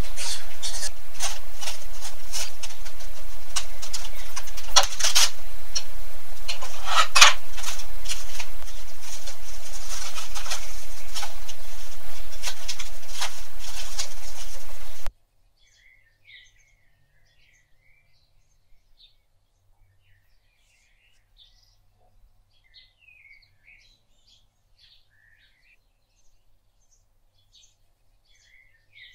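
A loud, steady hiss with scattered clicks and a low hum cuts off abruptly about halfway through. After it, only faint birds chirping remain.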